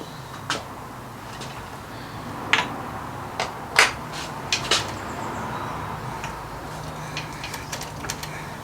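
Irregular sharp clicks and knocks of tools and bike parts being handled and fitted during a mountain bike build, the loudest about four seconds in, with a cluster of lighter ticks near the end.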